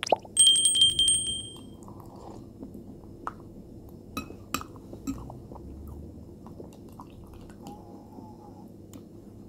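Metal spoon clinking against a glass bowl of cornflakes and milk: a rapid run of clinks near the start with a clear ringing tone that lasts about a second and a half, then a few scattered lighter taps of the spoon on the glass.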